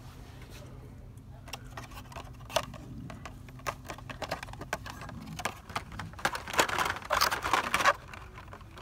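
Hot Wheels blister-pack cards clicking and rattling against each other and their metal peg hooks as a hand flips through them. Scattered clicks at first, then a dense run of clattering near the end.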